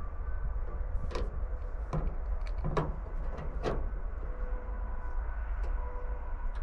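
Hand tools working screws out of the sheet metal at the front of a square-body Chevy pickup: about five sharp metal clicks and scrapes between one and four seconds in, over a steady low rumble.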